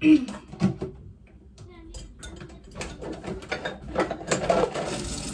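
Clicking and clattering of kitchen dishes being handled, then a kitchen tap turned on with water running steadily from about four seconds in.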